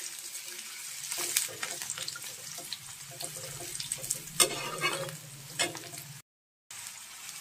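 Chopped vegetables frying in oil in a metal kadhai, a steady sizzle, while a flat metal spatula stirs and scrapes them across the pan in several short strokes. The audio cuts out completely for about half a second near the end.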